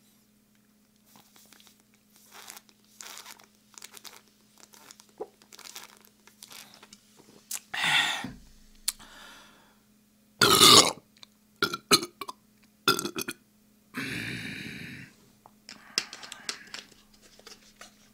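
A man gulping cola from a plastic bottle, then burping loudly several times after drinking it. The loudest burp comes about halfway through and a longer, drawn-out one comes around 14 seconds in.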